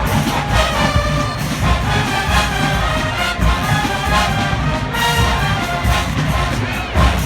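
Large marching band playing, with trombones and trumpets carrying the melody over a regular drum pulse.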